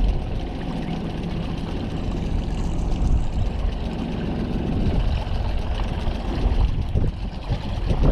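Outboard motor of a small fishing boat running steadily as the boat moves through the water, with water rushing along the hull.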